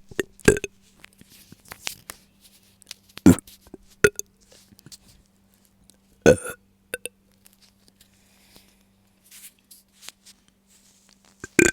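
A woman's short burps, four or five brief ones spaced a few seconds apart, with small mouth noises between. They come from bloating after drinking milk, as she has it.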